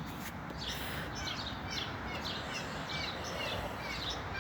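Small birds chirping, a quick run of short chirps several times a second, over a steady low background hiss.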